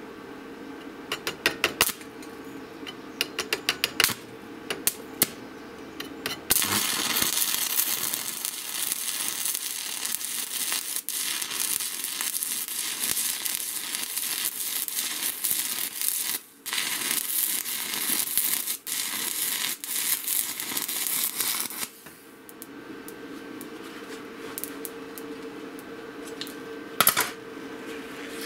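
A 7018 stick-welding electrode at 130 amps is scratched and tapped on steel to strike an arc, giving a run of sharp clicks. About six seconds in the arc catches and burns with a steady crackling hiss for about fifteen seconds, dropping out briefly once, then stops, leaving a steady hum. The rod is hard to start at this current, which the welder takes as a sign that 7018s need more current.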